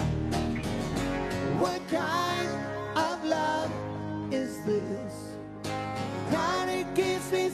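Live rock music from a guitar duo: electric guitar playing lead lines with bends and slides over strummed acoustic guitar and a steady low rhythm backing.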